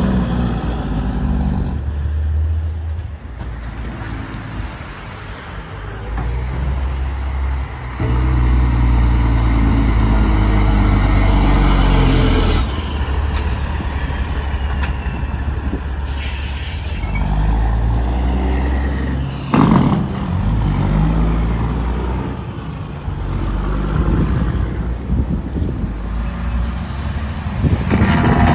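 Diesel semi-truck engines running loud and low as the big rigs pull away and pass close by, one after another.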